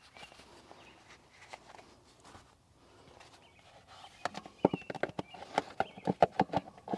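A rapid series of sharp knocks and clicks, about five a second, beginning about four seconds in after faint rustling handling noise.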